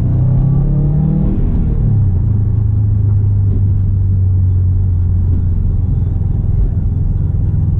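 Engine and Invidia R400 exhaust of a 2019 Subaru WRX STI, heard as a low drone. The pitch drops about two seconds in, then holds steady.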